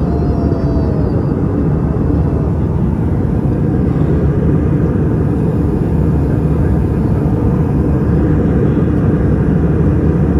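Steady low roar inside a jet airliner's cabin at cruise altitude: engine and airflow noise heard from a window seat.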